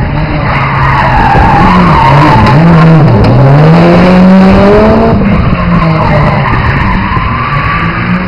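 Subaru Impreza STI R4 rally car's turbocharged flat-four engine working hard with its tyres skidding on tarmac. The revs drop sharply twice, about two and three seconds in, then climb back, and the engine note falls away after about five seconds as the car passes.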